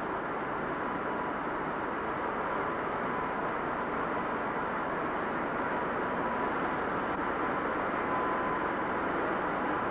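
Avrocar's turbojet-driven central turborotor running steadily: an even rushing jet noise with a faint steady whine.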